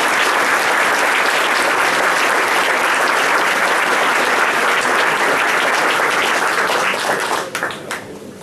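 Audience applauding, a steady dense clapping that thins out and fades near the end.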